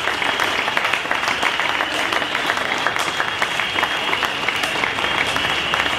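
Large crowd applauding with dense, steady clapping, with a thin steady high tone underneath.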